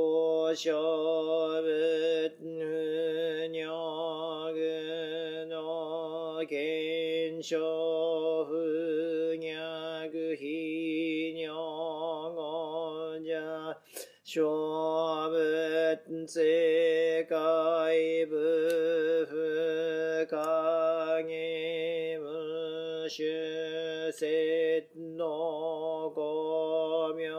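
A single male voice chants a Buddhist sutra in Japanese, in the melodic, drawn-out style of a Jōdo Shinshū morning service. The lines are long held phrases that waver in pitch, with short breaths between them and a longer breath pause about halfway through.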